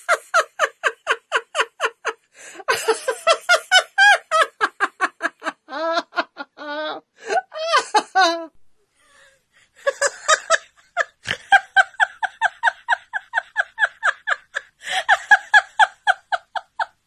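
Women laughing heartily in quick, repeated 'ha-ha-ha' runs: deliberate laughter-yoga laughter from the 'giggle phone' exercise. The laughter breaks off briefly past the middle, then starts again.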